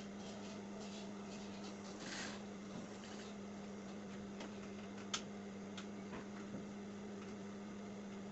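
Sewing machine motor humming steadily while fabric is worked under the presser foot, with a rustle of fabric about two seconds in and a few light clicks, the sharpest just after five seconds.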